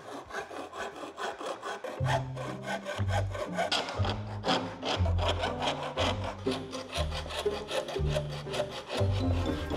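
Hand hacksaw cutting an aluminium frame profile, a continuous run of back-and-forth rasping strokes.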